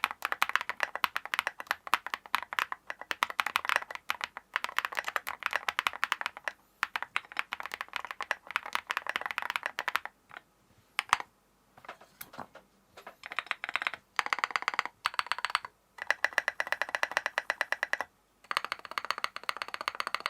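Percent Studio Trio 75 custom mechanical keyboard with a tape mod, being typed on. Fast continuous keystrokes for about ten seconds give way to a few scattered single key presses, then several short bursts of rapid typing that stop suddenly at the end.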